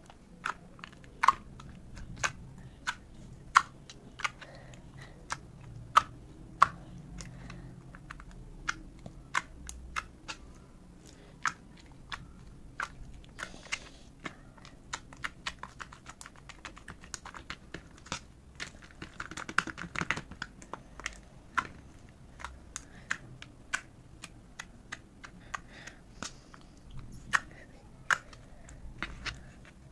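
Glossy clear glitter slime being poked, pressed and folded by hand, giving off irregular sharp sticky clicks and pops, with a spell of denser squishing about two-thirds of the way through.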